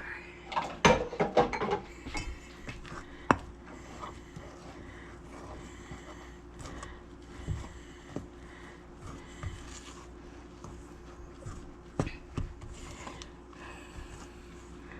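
Kitchen utensils and dishes knocking and scraping against a bowl and counter while bread dough is mixed. A quick run of clattering knocks comes in the first two seconds, then scattered single clicks and knocks over a faint steady hum.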